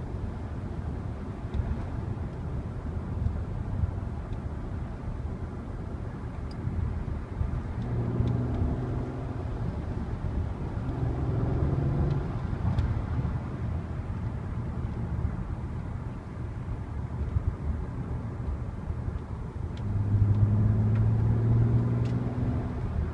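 Volkswagen Passat R36's stock 3.6-litre VR6 engine and road noise while driving. The engine note comes up twice, rising in pitch from about eight seconds in and swelling louder again near the end.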